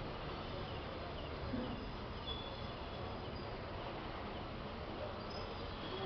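Steady outdoor background noise with a low rumble, and a few faint, short high chirps now and then.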